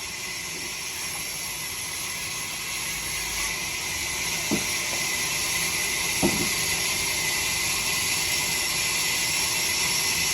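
Steady high-pitched hiss, slowly growing louder, with two brief sliding squeaks about four and a half and six seconds in.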